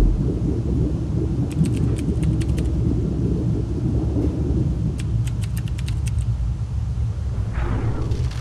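Deep steady rumble with two short runs of sharp clicks, one about one and a half seconds in and one about five seconds in, and a brief whoosh near the end.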